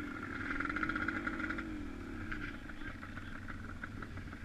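An engine running steadily, its pitch wavering slightly, loudest in the first second and a half.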